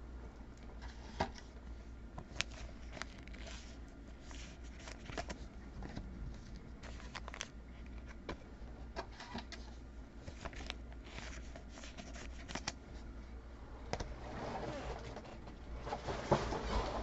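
Faint rustling and scattered light clicks of trading cards and packs being handled and flipped through, over a steady low hum.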